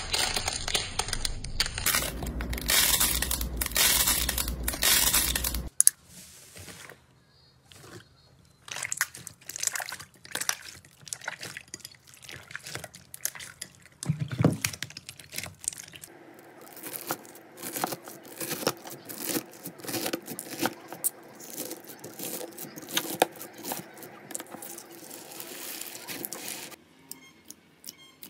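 Hands squeezing and stretching slime: a run of sticky, wet crackles and pops, dense and loud for the first few seconds, then quieter and more scattered.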